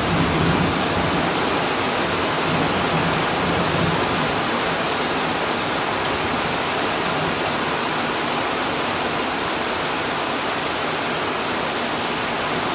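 Steady rain falling in a thunderstorm, an even rushing hiss, with the last of a thunder rumble dying away in about the first second.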